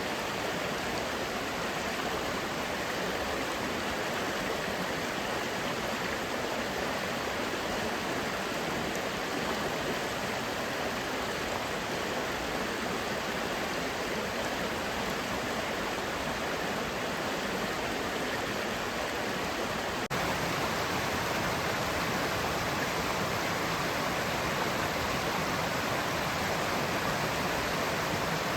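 Great Langdale Beck, a fast rocky Lake District stream, rushing steadily over stones. The sound gets slightly louder about two-thirds of the way through.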